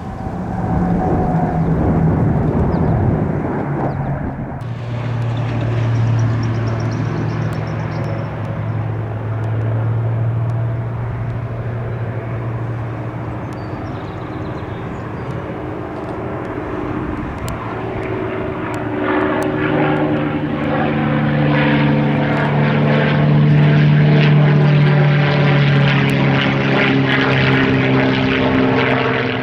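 Propeller-driven aircraft engine running with a steady drone as the plane flies past. It gets louder and higher-pitched in the second half, then cuts off abruptly at the end.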